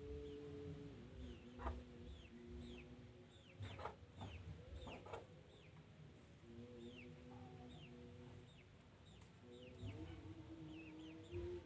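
Faint bird chirps: many short, quick falling notes repeated irregularly, over a steady low hum that stops and resumes several times.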